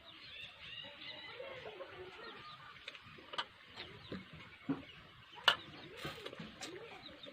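Chickens clucking and small birds chirping in the background, with three sharp clicks in the second half.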